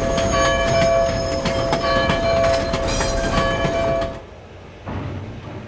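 Steam locomotive arriving: a steady two-note squeal over rapid metallic clanking and hiss, which stops abruptly about four seconds in. A short burst of noise follows, quieter.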